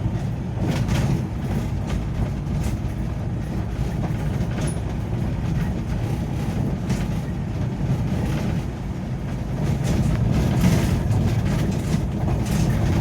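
Ambulance driving on a forest road, its engine and road noise a steady low rumble heard from inside the cab.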